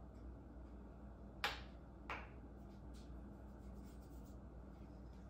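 Hands sprinkling flour into a towel-lined bowl: two brief soft swishing taps about two-thirds of a second apart over a quiet, steady room hum.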